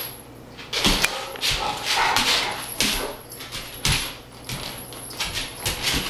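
Great Pyrenees dog making short vocal sounds several times, with a few low thumps in between.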